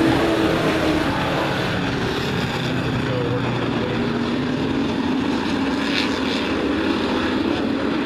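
Several racing sport-truck engines running at speed as a pack passes, the engine notes sliding up and down in pitch as the trucks go by. The sound is loudest at the very start, when the trucks are closest.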